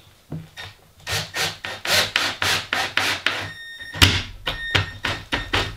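Cordless drill working into the edge of 18 mm plywood: a run of rasping scrapes as the bit cuts the wood, with a steady motor whine from about three and a half seconds in.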